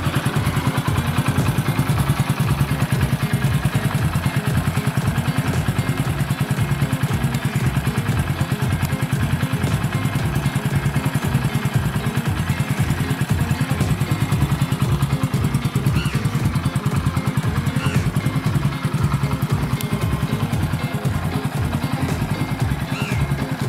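Hero HF Deluxe's single-cylinder four-stroke engine idling steadily, an even low putter with no revving.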